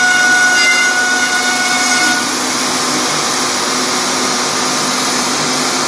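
MultiCam CNC router cutting a wooden board, with a vacuum hose drawing off the chips: a loud, steady rush of suction with a high whine that stops about two seconds in, while the suction noise carries on.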